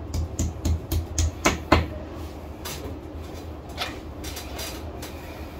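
A run of light clicks and knocks, quick in the first two seconds and then sparser, over a low steady hum: hand tools and metal blind-mounting brackets being handled at a window frame.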